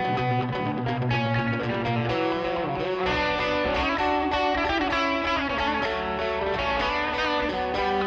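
Instrumental math-rock passage: electric guitars through effects play shifting note patterns over bass, with no vocals.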